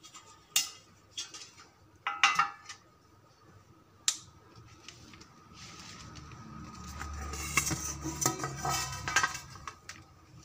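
A metal baking tray clinking and knocking against a steel plate as a slab of sweet is turned out of it, with several sharp separate clanks in the first four seconds. From about six seconds in, softer scraping and rustling as the slab and tray are handled on the plate.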